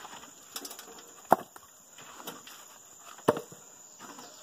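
Firewood logs knocking together as they are stacked onto a loaded wheelbarrow: two sharp knocks about two seconds apart, with lighter taps between.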